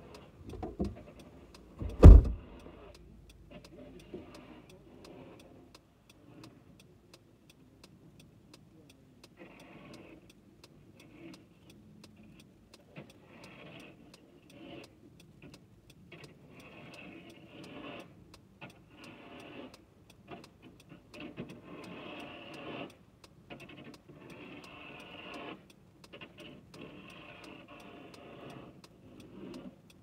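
A car door shuts with a heavy thump about two seconds in, heard from inside the car. Then a snow shovel scrapes and pushes snow beside the car in repeated, irregular strokes.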